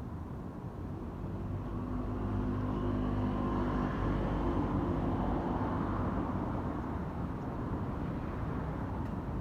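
A vehicle passing close by, growing louder over the first two seconds and then running steadily.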